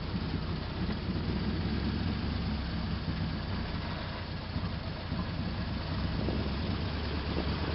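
1941 Ford's original 85 hp flathead V8 idling steadily, running smoothly on all cylinders.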